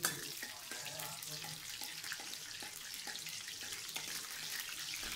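Cumin and mustard seeds sizzling in hot oil in a metal kadai during tempering, with a steel ladle stirring and lightly knocking against the pan about twice a second.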